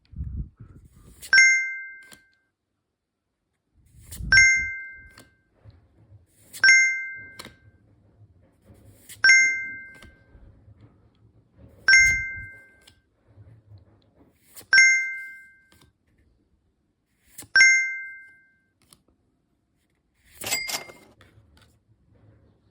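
A two-tone ding sound effect, seven times about every two and a half seconds, some just after a soft low thump, then a brighter, shimmering chime near the end.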